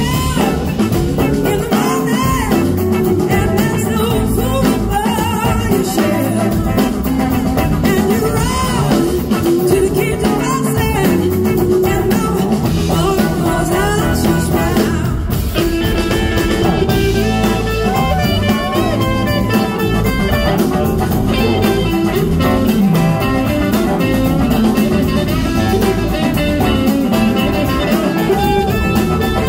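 Live blues-rock band playing: a female lead vocal over electric guitars, bass guitar and drum kit.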